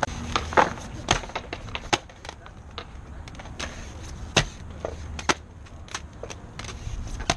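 Aggressive inline skates rolling on concrete under a low rumble, with a string of sharp clacks and knocks as the hard skate frames and wheels strike the ground.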